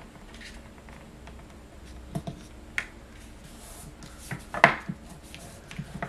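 Black cardstock pieces being handled and pressed down by hand on a craft mat: a few light taps and short rubbing sounds, the loudest a little under two-thirds through, over a faint steady background hum.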